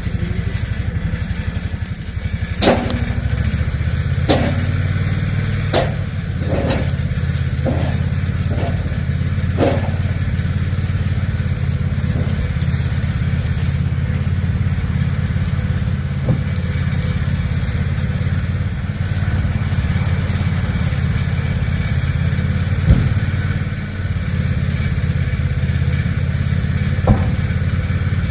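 An engine running steadily throughout. A quick run of sharp knocks and clunks comes over it between about three and ten seconds in, and single knocks follow later.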